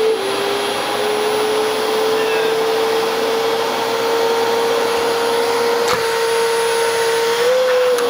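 Dyson DC25 ball upright vacuum's 11-amp motor running at full speed with a steady whine. A single sharp click comes about six seconds in, and the pitch lifts slightly near the end.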